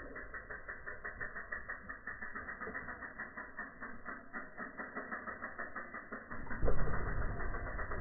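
Mountain bike's rear freewheel hub ticking steadily as it coasts. About six and a half seconds in, a louder rumble of tyres rolling on dirt joins it as the bike passes close.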